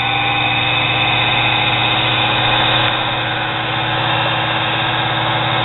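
Nano lathe's brushed motor running steadily at speed, fed through a variac at about 100–110 volts instead of the 120 volts of the mains: a steady hum with a whine above it.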